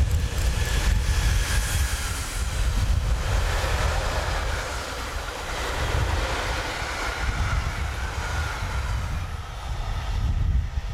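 Freight train of container and tank wagons rolling past behind an electric locomotive, a steady rush of wheels on rail with a faint drawn-out tone in it, dying away near the end as the last wagon goes by. Wind buffets the microphone with a low rumble throughout.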